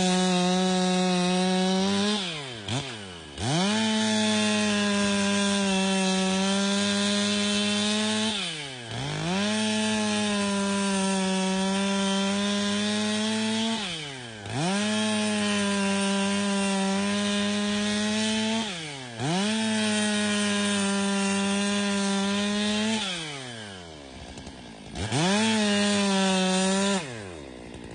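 Stihl MS 661 C two-stroke chainsaw running flat out through a series of cuts of about five seconds each. Between cuts the pitch drops briefly as the throttle is eased and then climbs straight back. Near the end it falls to idle, gets one short rev, and drops back to idle.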